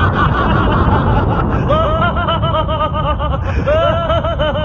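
A cartoon character's rapid, high-pitched laughter, in quick repeated bursts of about seven or eight a second starting about two seconds in, over a steady low rumbling sound effect.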